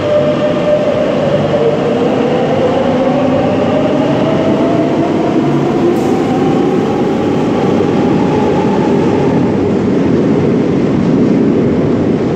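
Madrid Metro train pulling out of an underground station and accelerating away. Its motor whine rises steadily in pitch over the running noise of the train on the rails, with a brief click about six seconds in.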